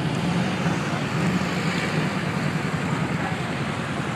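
Motorcycle engines running in street traffic: a steady low rumble.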